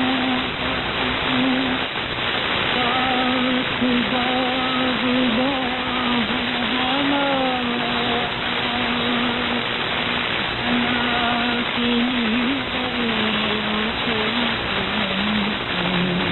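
Weak shortwave AM broadcast received on 11905 kHz: faint music with a held, wavering melody line, buried under a heavy, steady wash of static hiss.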